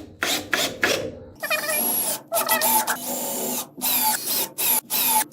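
Power drill driving screws into lumber in a string of short bursts, the motor whine rising in pitch as each burst starts.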